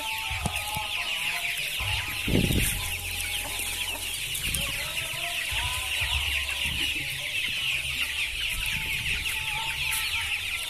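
A large flock of young KUB-2 kampung chickens, a little over a month old, peeping and clucking continuously over one another while being fed ground corn. There is a low thump about two seconds in.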